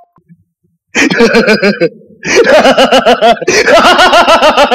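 A man laughing loudly in a rapid 'ha-ha-ha', starting about a second in with two brief breaks.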